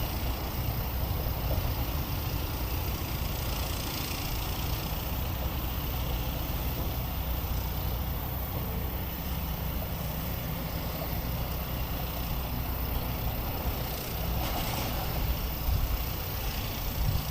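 Steady low rumble of road traffic, with an even background hiss above it.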